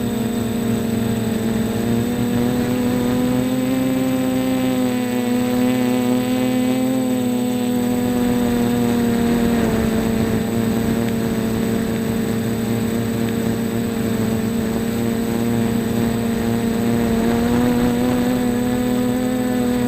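Quadcopter's electric motors and propellers in flight: a steady buzzing whine whose pitch drifts slightly up and down as the throttle shifts.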